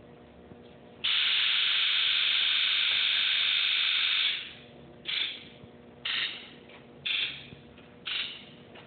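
Electrical injector buzz test on a 1997 Ford F-250's 7.3L Powerstroke diesel, engine off. Its HEUI injectors buzz together for about three seconds, then short buzzes follow about once a second as the injectors fire one by one, four of them here. This is the sound of a good test: healthy original injectors.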